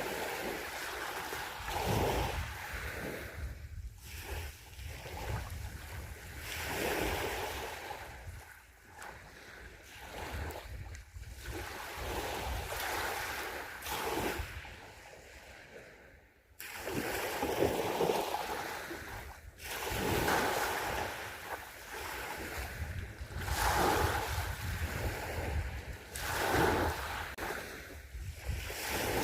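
Sea waves breaking and washing up on the shore, the surf swelling and falling every few seconds.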